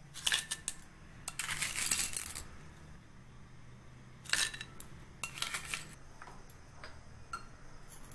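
Crushed ice tipped from a spoon into a glass tumbler, clattering and clinking against the glass in four bursts, with a few small ticks between them.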